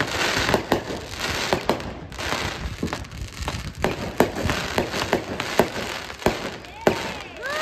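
Neighbourhood consumer fireworks going off: a rapid, irregular string of sharp pops and bangs with crackling bursts as the shells break into glittering sparks.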